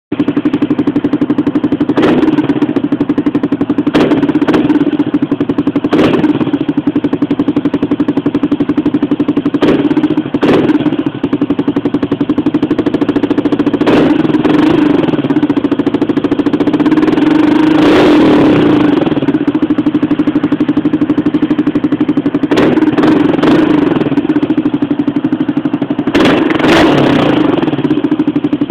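Yamaha Crypton X's single-cylinder four-stroke engine running through an aftermarket Dragon exhaust, heard close to the tailpipe through a phone microphone. It idles steadily with a short throttle blip every few seconds and one longer rev about halfway through.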